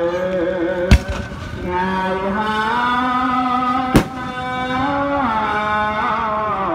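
Two firework bursts about three seconds apart, sharp bangs that are the loudest sounds, over continuous music with a held, sliding melody line.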